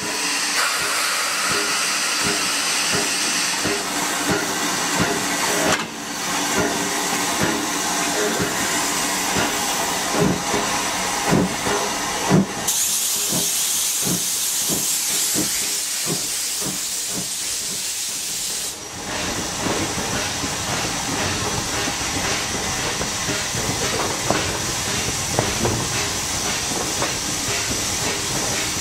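USATC S160 2-8-0 steam locomotive, built by Lima in 1945, pulling a train away: steam hissing, with a run of regular exhaust chuffs and then a louder hiss of steam for several seconds midway, heard from a carriage window behind the engine.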